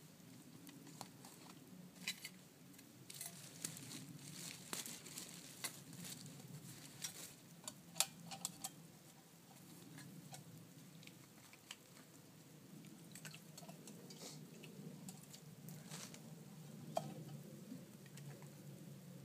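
Camp cooking gear being handled: plastic bags crinkling and small metal clicks and knocks as a pot and stove are set up. The clicks come thickest in the first half, with one sharp loud knock about eight seconds in, over a steady low hum.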